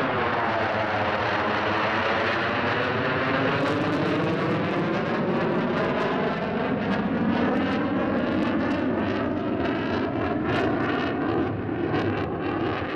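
Loud, continuous jet noise from an RF-4E Phantom II's twin J79 turbojets on a low display pass, with a sweeping, phasing whoosh through it. It turns harsh and crackling in the second half.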